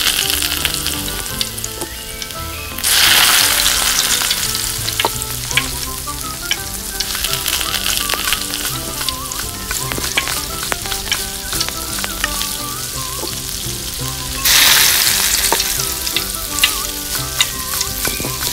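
Food frying in a miniature pan, a steady sizzle with crackles; the sizzle suddenly swells louder twice, about three seconds in and again about fourteen seconds in.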